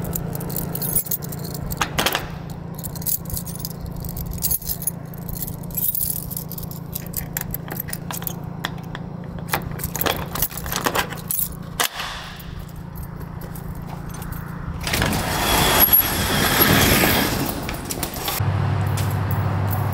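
Keys jangling and a padlock clicking open on a metal sliding door latch, with a run of small clicks and clinks as the lock is removed and the latch is slid back. About fifteen seconds in there is a louder noisy stretch lasting a couple of seconds.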